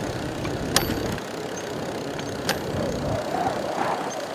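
A Genesis 26-inch bicycle being ridden: a steady low rumble of wind and tyres that eases a little over a second in, with two sharp clicks.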